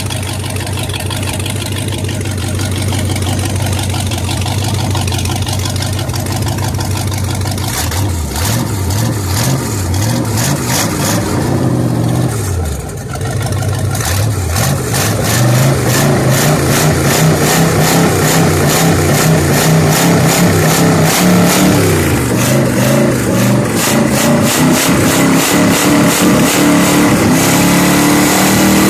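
350 Mariner V8 marine engine running after a year in storage. It idles steadily at first, is revved up and down several times in the middle, then holds higher revs and climbs again near the end.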